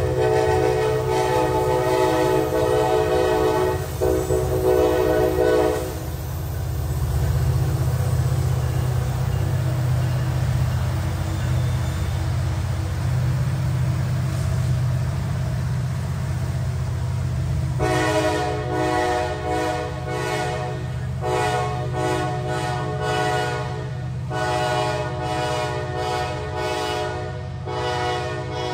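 Diesel-hauled double-stack freight train rumbling past, with the rear locomotives going by. Over the rumble a multi-note locomotive air horn sounds one long chord for about the first six seconds, then sounds again from about two-thirds in as a series of blasts with short breaks.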